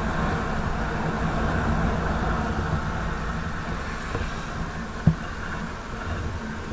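Hero Maestro scooter on the move, engine running under wind and road noise, growing quieter as it slows down. A single short knock about five seconds in.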